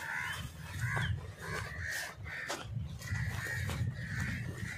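Crows cawing over and over in harsh calls, about two a second, with a low rumbling on the microphone from it being carried.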